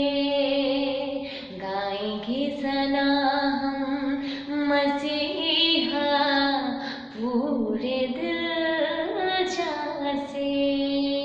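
A woman singing a Hindi Christian worship song solo, drawing out long held notes and sliding between pitches.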